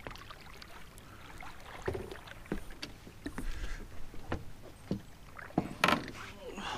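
Scattered knocks and clicks on a small fiberglass fishing boat as a hooked bass is played alongside, with a louder knock and splash about six seconds in as the fish reaches the surface by the boat.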